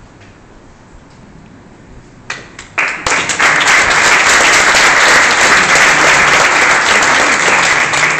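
Low room murmur, then a few scattered claps a little over two seconds in that quickly swell into loud, sustained audience applause.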